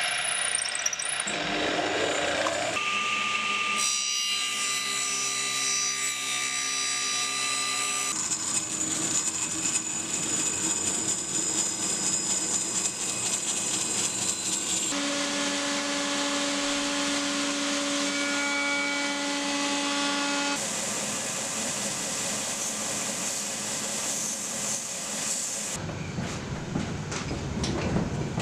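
Woodworking machines running in a string of short edited clips, starting with a drill press boring into a hardwood part and including a band saw. Each clip is a steady machine whine on a few fixed pitches that cuts off abruptly into the next.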